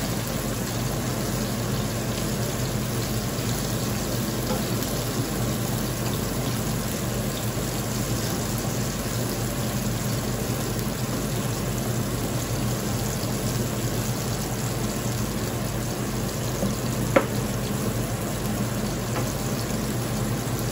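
Garlic and tomatoes sizzling steadily in olive oil in a frying pan as they are stirred with a plastic spoon, over the steady hum of a range-hood exhaust fan. A single sharp tap sounds late on.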